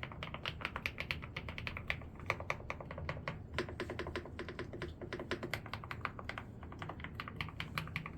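Mechanical keyboard being typed on in a fast, continuous run of light clicking keystrokes, several a second.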